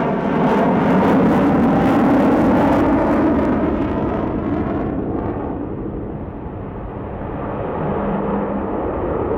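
Avro Vulcan XH558's four Olympus turbojets in a display pass: loud, rough jet noise with a howling tone. About five seconds in it loses its higher tones and dips in level, then grows louder again near the end.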